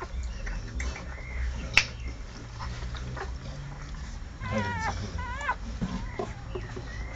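Newborn American Staffordshire Terrier puppies squealing at the teats, with two high, wavering squeals past the middle and a few fainter short squeaks. A single sharp click sounds about two seconds in.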